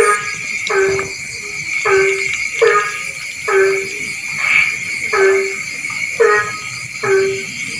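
A frog calling over and over, about nine short calls with a little over a second between them, each ending on a low note. Behind it runs a steady, high-pitched chorus.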